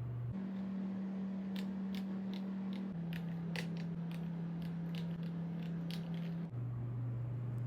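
Keys of a Kreo Hive98 mechanical keyboard being pressed, a crisp click roughly twice a second at an uneven pace. Underneath runs a low steady hum that shifts pitch a few times.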